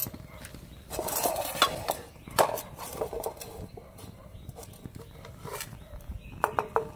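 Metal tongs clinking and scraping against a metal frying pan in a string of sharp knocks. The loudest knock comes about two and a half seconds in, and a quick cluster of clinks with a short ring comes near the end.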